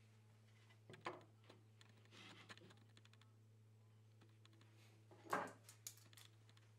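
Faint handling sounds at a mortise in an ash board: a few light taps and a brief scrape, with the clearest taps about a second in and about five seconds in, over a low steady hum.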